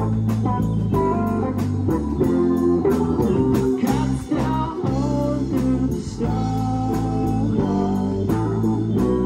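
Live rock band playing an instrumental passage: electric guitar lines over bass guitar, drums and keyboards, with a steady drum beat.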